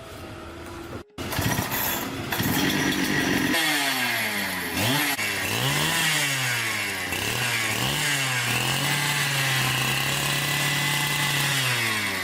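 Husqvarna 365 two-stroke chainsaw engine running, revved up and down several times, then held at high revs for about three seconds before dropping back near the end.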